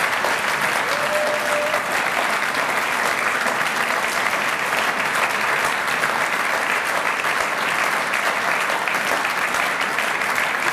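Audience applauding steadily: a dense patter of many hands clapping at once, holding an even level.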